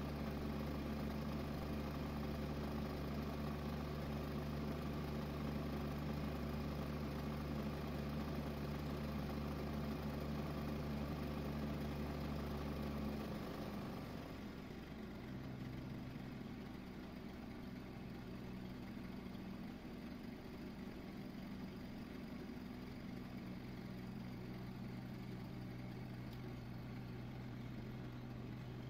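A steady, low, engine-like hum with several held tones. About 13 seconds in the tones break off and shift to a different pitch, and the hum goes on a little quieter.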